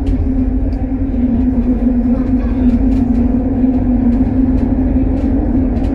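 Kelana Jaya Line LRT train running through a tunnel, heard from inside the front car: a steady low rumble with a strong, even hum, and scattered sharp clicks.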